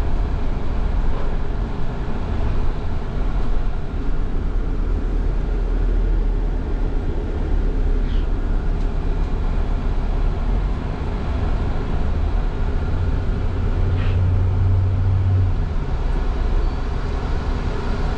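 Steady low rumble of a moving vehicle, with a deep hum that swells for a couple of seconds past the middle and two faint brief squeaks.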